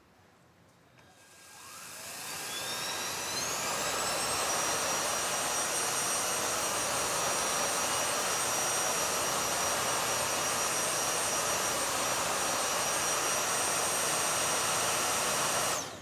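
Vorwerk VB100 vacuum cleaner switched on: about a second in its motor spins up with a rising whine, then runs steadily with a high whine over the rush of suction air, and is switched off near the end, cutting off suddenly.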